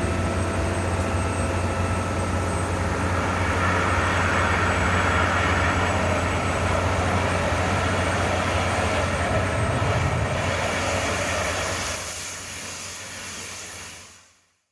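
Well-drilling rig for geothermal boreholes running: a steady heavy engine drone with a strong low hum. It drops in level about twelve seconds in and cuts off just before fourteen.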